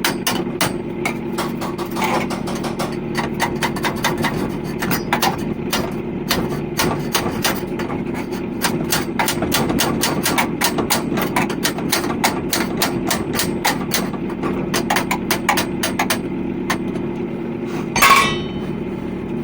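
Rapid, irregular hammer-like metal taps, several a second, over a steady engine hum, with one louder knock near the end.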